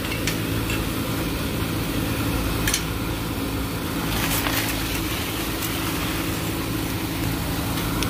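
Packaged air-conditioning units running: a steady low electrical hum with a couple of light metal clicks from the chain-link gate.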